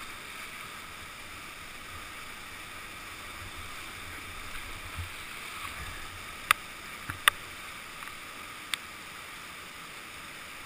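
Whitewater rapids rushing steadily, an even hiss of churning river water, with a few sharp clicks past the middle.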